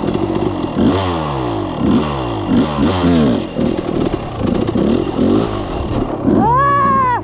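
Yamaha YFZ450R quad's single-cylinder engine through a full FMF exhaust, revving up and down over and over as the quad is ridden. A brief, loud, high-pitched held tone comes in near the end.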